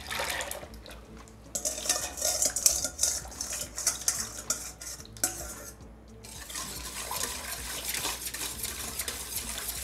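Whisk clinking and scraping against a saucepan in quick, uneven strokes as the custard base of milk, flour, sugar and cream is mixed. There is a short break about six seconds in.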